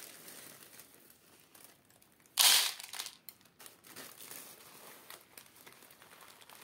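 Clear plastic bag crinkling as unhulled oats are shaken out of it onto a plastic tray on a kitchen scale. One short, loud rustle of bag and pouring grain comes about two and a half seconds in, with a few lighter rattles after it.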